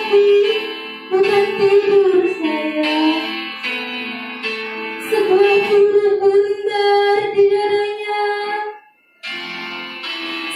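Music: girls' voices singing a musical setting of a poem into microphones, with instrumental accompaniment, in long held notes. The sound breaks off briefly near the end, then resumes.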